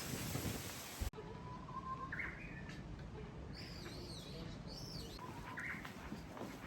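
Birds chirping: several short calls with rising and falling pitch over a low steady rumble. About a second in, a steady hiss cuts off abruptly.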